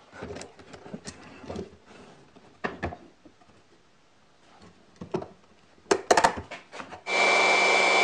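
Wooden workpiece being knocked into place and clamped on a slot mortising machine: scattered knocks and clicks, with a sharper clatter of the toggle clamp about six seconds in. Near the end, the mortiser's motor starts and runs steadily with a high whine, ready to cut the next mortise.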